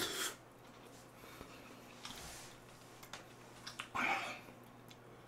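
Quiet eating sounds from a person eating jjapagetti noodles: a short slurp of noodles at the start, a few light clicks, and a short breathy exhale through the mouth about four seconds in.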